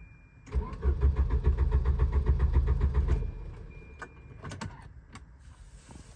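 Volvo 740 engine cranking on the starter with an even, fast rhythm for about two and a half seconds without catching, then stopping: the crank-but-no-start fault. A few sharp clicks follow near the end.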